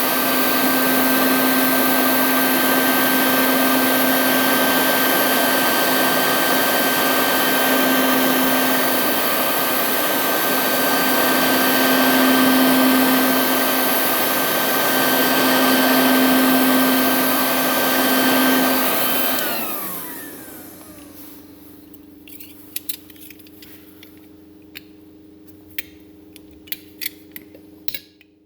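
A handheld electric power tool runs steadily with a hum and a high whine, then is switched off about two-thirds of the way through and its pitch falls as the motor winds down. Light clicks and taps of handling follow.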